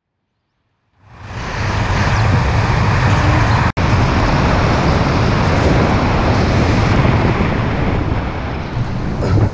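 Wind rushing over a camera microphone during parachute canopy flight: a steady, loud rush that starts suddenly about a second in, with a momentary dropout a little under four seconds in.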